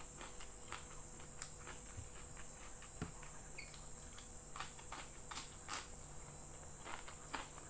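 Close-miked eating sounds: chewing and lip smacks heard as a scattering of soft, irregular clicks over a faint steady hiss.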